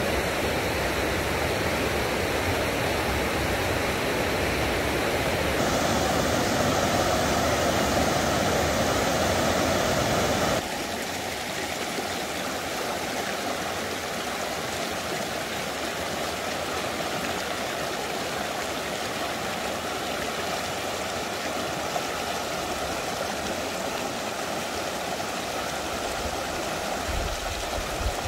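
Mountain creek rushing over rocks, a steady rush of water. It changes tone abruptly about six seconds in, then turns a little quieter and thinner about eleven seconds in.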